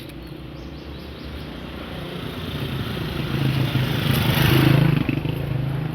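A motor vehicle approaching and passing close by: engine hum and road noise build steadily and are loudest about four and a half seconds in.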